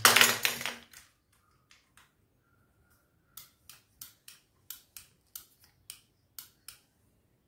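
RO purifier float switch clicking as its float is worked up and down, about three sharp clicks a second from a few seconds in. This is the switching click a working float switch should make, while the unit fitted in the purifier stays silent.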